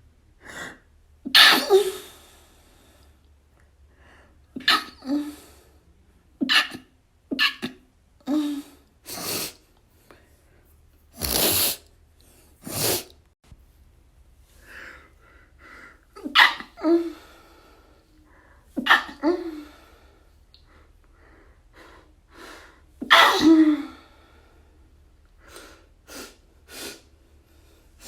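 A person sneezing over and over: about ten sharp sneezes spaced a second or more apart. Some have a voiced 'choo' and others are short and breathy, like stifled sneezes. Quick inhales and breaths come between them.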